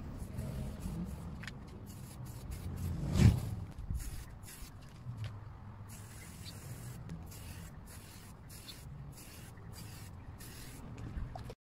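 Aerosol can of rubber paint hissing in repeated short bursts as a coat is sprayed onto a car's front grille, with a louder thud about three seconds in.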